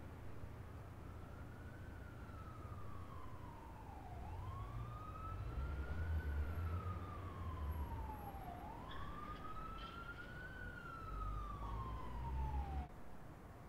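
Emergency vehicle siren wailing, rising and falling slowly about three times over a low rumble, then cutting off abruptly near the end.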